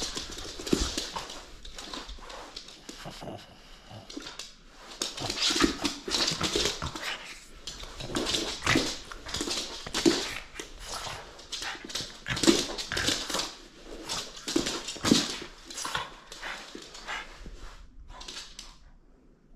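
French bulldog vocalising in a string of short, irregular, breathy bursts, quieting near the end: a dog eager for the toy held up in front of it.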